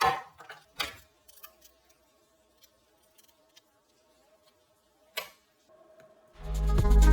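A few sharp, separate knocks, the loudest about five seconds in, over a faint steady hum. Electronic background music stops at the start and fades back in near the end.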